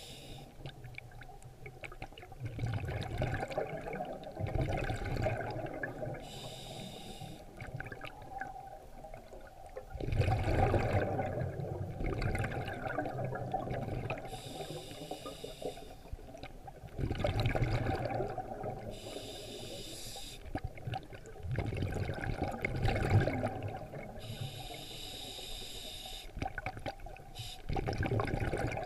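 Scuba diver breathing through a regulator underwater: a short hissing inhale every several seconds, alternating with a longer low bubbling gurgle of exhaled air.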